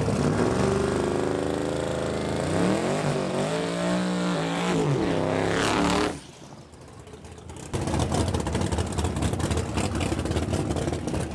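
Drag-racing pickup truck's engine revving at the starting line, its pitch wavering up and down. About six seconds in the sound drops away suddenly, and after a second and a half loud, rough engine noise returns.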